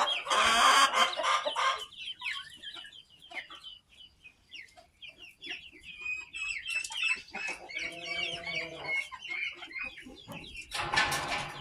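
Chickens calling: a loud drawn-out call for the first couple of seconds and again near the end, with chicks peeping in short falling chirps in between and a lower clucking call around eight seconds in.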